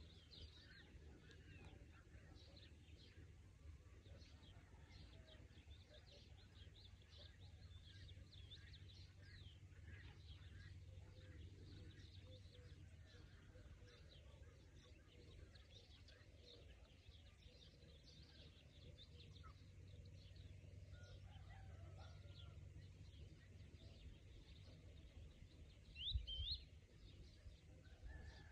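Faint chorus of small birds chirping, many short quick notes, over a steady low outdoor rumble. A brief low thump near the end.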